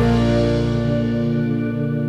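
Background music: a soft held chord between sung lines of a pop song.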